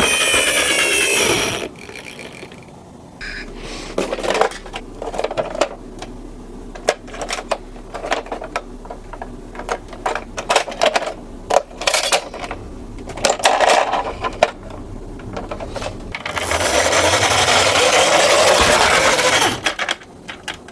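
Ambulance siren wailing for the first couple of seconds and then cutting off. Irregular clicks and rattles of toy minicars rolling and knocking on a slope follow. Near the end comes a loud, even rushing noise of about three seconds that stops suddenly.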